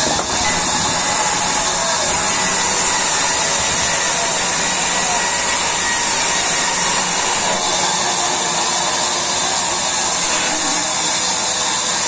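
Large sawmill band saw running and cutting through a wooden slab as it is fed by hand: a steady, even noise with a strong high hiss.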